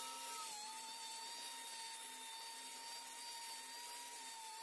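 Angle grinder with a wire cup brush running with a steady, faint high whine, brushing old paint and dirt off a tractor's sheet metal. The pitch dips briefly about half a second in and again near the end.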